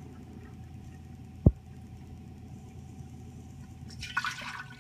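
Water pouring from a plastic gallon jug into a stainless steel measuring cup. A single low thump comes about a second and a half in, and a short, noisy burst near the end.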